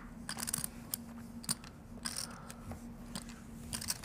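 Poker chips and paper money being handled at the table: several quick runs of small clicks and rustles, over a faint steady hum.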